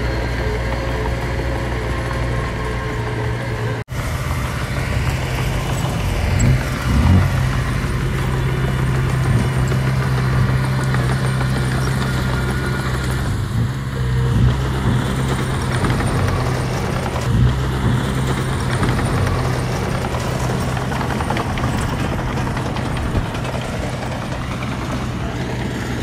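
Diesel engine of earthmoving equipment running steadily with an even low hum, with a few brief louder knocks. The sound drops out for an instant about four seconds in.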